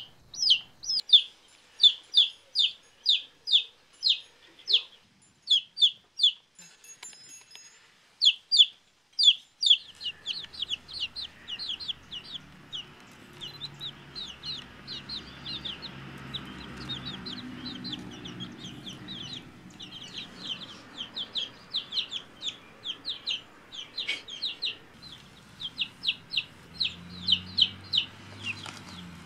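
Two-week-old baby chicks peeping: a steady run of short, high, falling peeps, about two or three a second. A faint low hum joins underneath from about ten seconds in.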